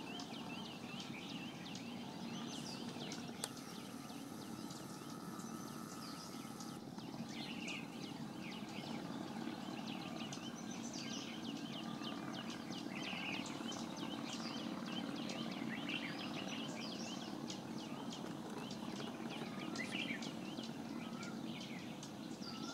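Many small birds chirping and twittering, short calls overlapping all the way through, over a steady low hum.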